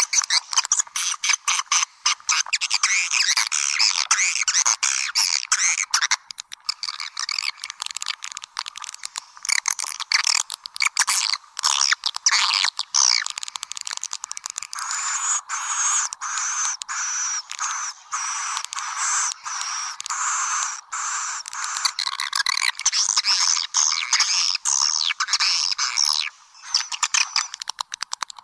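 Swiftlets twittering and chirping densely, with rapid dry clicks through it and no pause. This is a recorded swiftlet lure call, the kind played to draw the birds into a nesting house.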